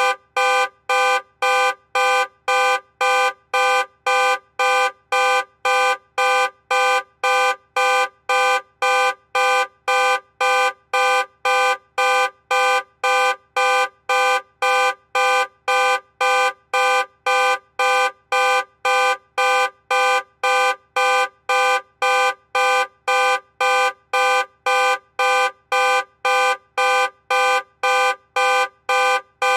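Car alarm sounding in evenly spaced, loud blasts, about two a second. Each blast is a harsh steady horn tone that switches on and off without any change in pitch.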